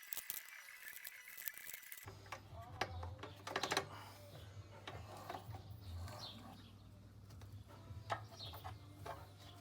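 Rapid light metallic clicks and clinks, as of tools and small parts being handled, for about two seconds. Then they stop abruptly, leaving a steady low hum with a few scattered ticks and short bird chirps.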